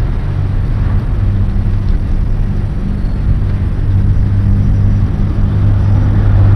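A vehicle engine idling steadily with road traffic noise, a low hum that grows a little louder in the second half.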